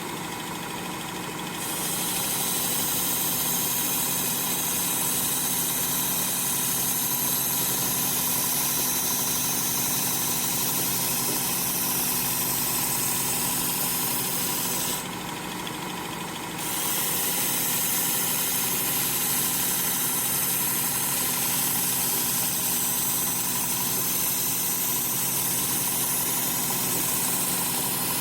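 Work Sharp sharpener's motor running with a steady hum, and the hiss of a well-worn 80-grit belt grinding a kitchen knife's edge. The grinding hiss breaks off for a second or two about halfway through, leaving only the motor, then starts again.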